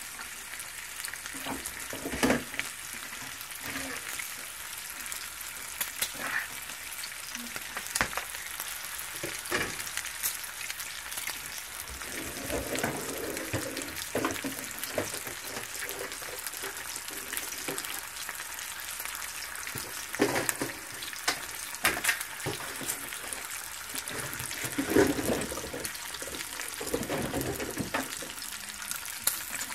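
Bacon strips frying in a skillet: a steady sizzling hiss of hot fat with frequent sharp pops and spatters.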